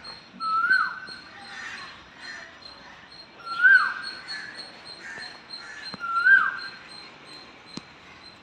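An animal calling three times, about three seconds apart: each call is a short clear note that rises slightly, holds, then drops away sharply.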